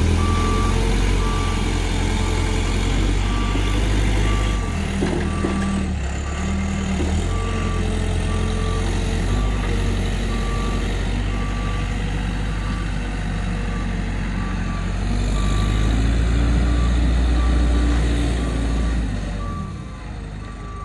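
2005 SkyTrak 6036 telehandler's diesel engine running as the machine drives, with its reverse alarm giving evenly repeated short beeps throughout. The engine swells about three-quarters of the way through and drops away near the end.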